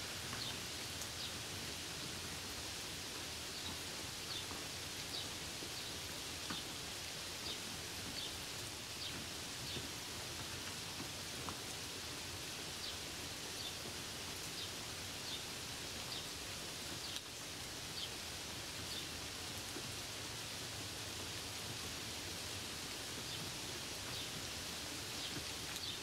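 Steady rain falling on grapevine leaves, with scattered sharper taps of single drops.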